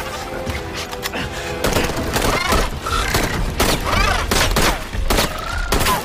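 Film soundtrack of rapid automatic rifle fire in repeated bursts, starting about two seconds in, over dramatic music.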